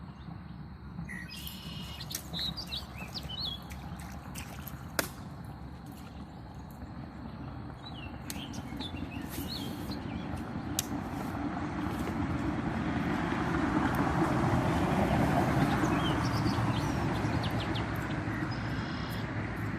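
Birds chirping in short bursts over a steady low background, with a sharp click about five seconds in. In the second half a broad rush of noise swells up to a peak and eases off again.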